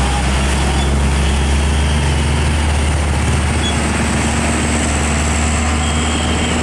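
Diesel engine of a three-axle Hino 500 box truck running steadily at low revs as the truck crawls past, with a deep, even drone.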